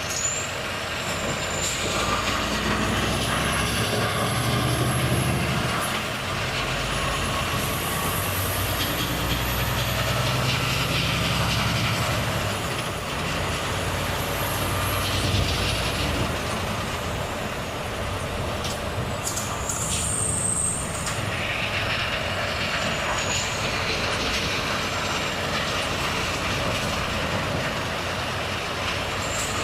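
Volvo FH truck's diesel engine running under way with road noise, its note swelling and easing over the first dozen seconds, with high whistling glides above it. A short hiss with clicks about twenty seconds in, typical of the truck's air brakes.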